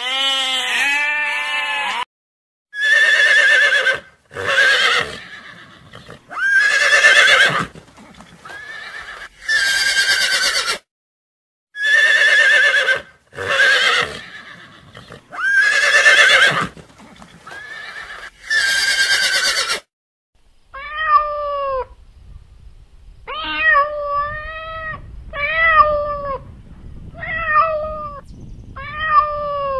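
A goat bleating twice, then a horse whinnying over and over in calls a second or so long, the same set of whinnies heard twice. From about 21 s a cat meows in a string of short calls, about one a second.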